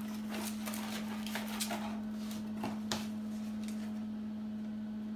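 A cardboard box of dry lasagna sheets being opened and the stiff sheets pulled out: a run of short rustles and clicks over the first three seconds, then only a steady low hum.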